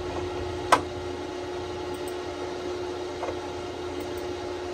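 Steady background hum with one sharp mouse click about a second in, and a fainter click later.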